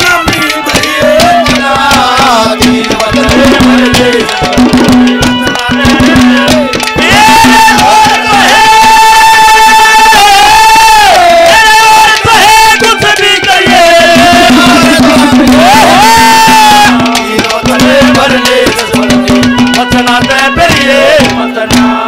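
Instrumental interlude of live Haryanvi ragni accompaniment: a sustained, bending melody line over rapid hand-drum strokes and a steady held low note.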